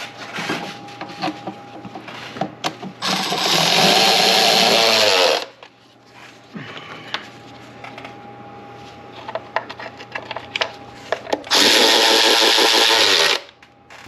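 A cordless power tool spinning valve cover bolts in, two runs of about two seconds each, with light clicks of handling between them.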